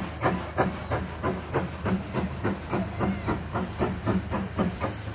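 Steam locomotive working steadily, with sharp exhaust beats about three a second, quickening slightly towards four, over a steady hiss of steam.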